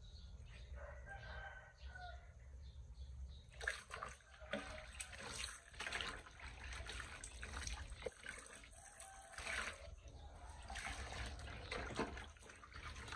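Water splashing and trickling during washing by hand, with small knocks of things being handled; quiet at first, then busier from about three and a half seconds in.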